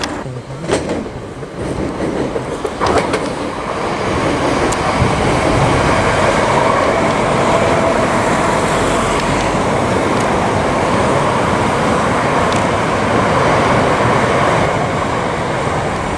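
Electric multiple-unit train passing close by, with a steady rumble of wheels on rails. A few sharp wheel clicks come in the first three seconds, then the sound swells about four seconds in and holds.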